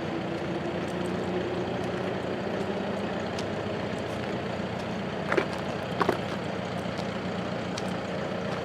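An engine running steadily, a low even drone with a faint steady tone in it. Two short sharp sounds come a little past the middle.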